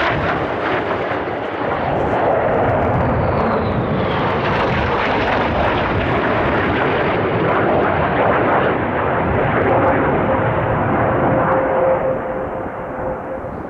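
Fighter jet flying low past, its engines making a loud, steady rushing roar, with a high whine falling in pitch in the first few seconds. A steady hum comes in late on, and the noise begins to fade near the end.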